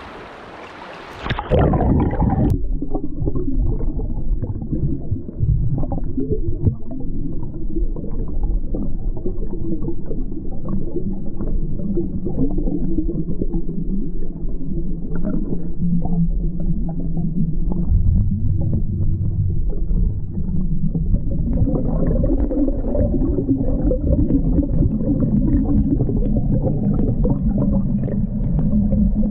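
River current heard from underwater: a loud, muffled, steady rushing and rumbling, dense with fine crackling. For about the first two seconds, before the microphone goes under, there is a fainter, brighter hiss of water at the surface.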